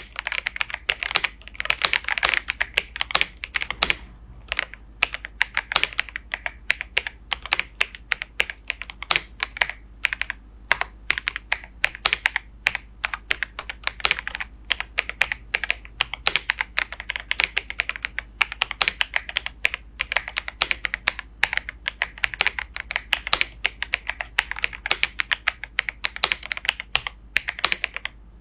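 Typing on an Ajazz AK820 MAX 75% mechanical keyboard: a fast, continuous run of key clicks and clacks, with a couple of short pauses in between.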